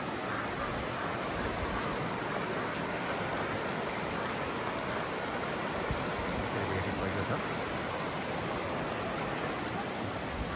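River water rushing steadily: an even wash of water noise with no let-up.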